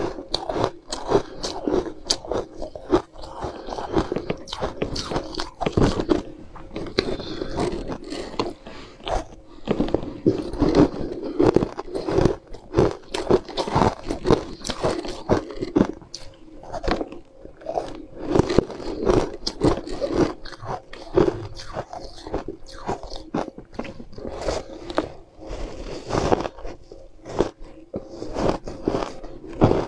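Close-miked biting and crunching of frozen ice chunks, with chewing: a dense run of crisp crunches one after another.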